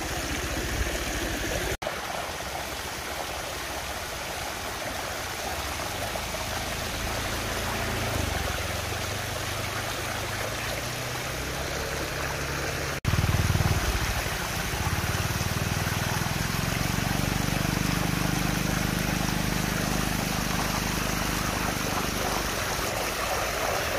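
Water rushing and swirling in a whirlpool vortex as it drains down a hole, a steady gush. It cuts out briefly twice and comes back louder about 13 seconds in, with a low hum underneath in the second half.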